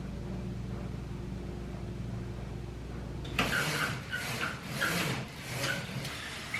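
A steady low electrical hum from an appliance that cuts off suddenly about three and a half seconds in, followed by a run of light clinks and clatter of household objects being handled.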